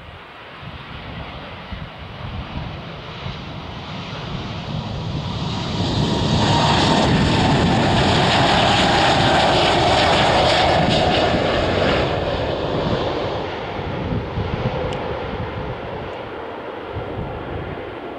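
Embraer 195-E2's Pratt & Whitney PW1900G geared turbofans at takeoff thrust. The engine noise builds through the takeoff roll and is loudest around liftoff, with a falling whine as the jet passes. It then fades steadily as the aircraft climbs away.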